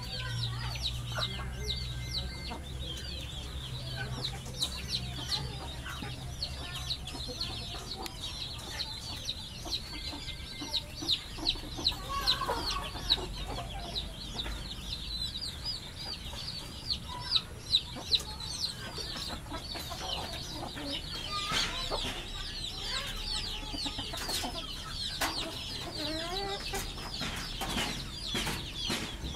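Chickens clucking in a yard, over a dense, quick high-pitched chirping that runs on throughout. A few sharp clicks stand out near the middle.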